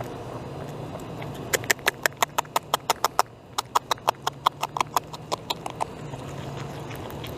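Beaver gnawing bark off a log: a quick run of sharp bites, about seven a second, with a short pause in the middle. The gnawing stops about six seconds in.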